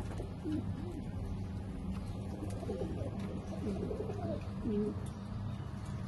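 Domestic pigeons cooing: several low, gliding coos about half a second in and again through the middle, over a steady low hum.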